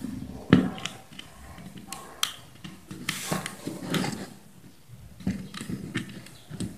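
Scattered small clicks and taps with light rustling as a length of insulated copper wire is fitted onto the brass screw terminals of a switch and socket on an extension board.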